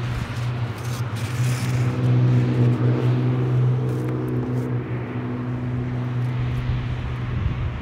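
Steady low hum of a motor vehicle engine running, with an even drone that swells a couple of seconds in and then cuts off suddenly.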